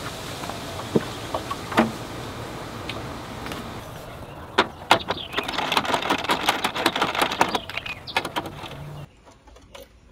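Hands working on a Vespa LX scooter's plastic legshield panels and trim: a few light clicks over a steady hiss, then about four seconds of dense clicking, knocking and scraping. Near the end the sound drops away suddenly.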